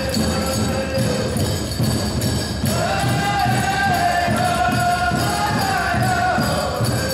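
Powwow drum and singers: a steady pounding drumbeat under high-pitched chanted singing, with a long high held phrase starting about three seconds in.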